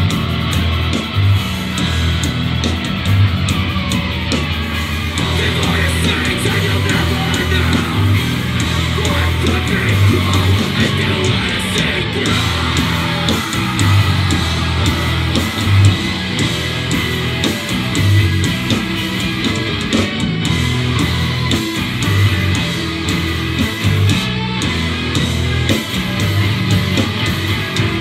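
A live rock band playing loud: distorted electric guitar, bass guitar and drums, with a vocalist shouting into a microphone.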